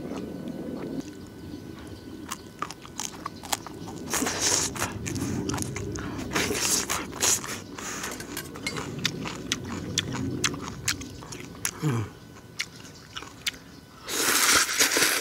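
Close-miked slurping and chewing of kalguksu noodles: wet mouth smacks and clicks throughout, with loud slurps about four seconds in and around seven seconds, and the loudest, longest slurp near the end.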